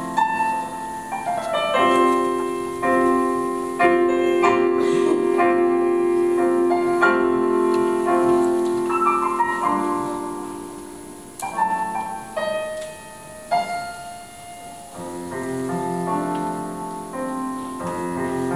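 Wind ensemble with clarinets, saxophones and piano playing held chords with a melody moving above them. The music thins out and quietens past the middle, then swells again near the end.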